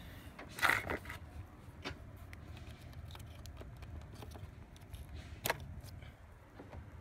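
Scattered small plastic clicks and rattles as hands work at a car's fuse box among the fuses, the loudest a short cluster about a second in, over a low steady hum.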